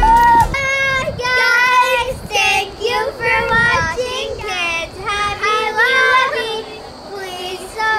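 Children singing a tune, with held notes that slide up and down.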